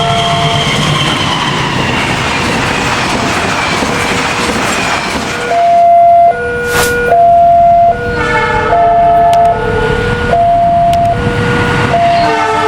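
Indonesian diesel locomotive's two-tone horn sounding the semboyan 35 signal as a short tune, alternating a high and a low note, over the rushing noise of a passing train. The first half is mostly train noise; the horn tune takes over about halfway through.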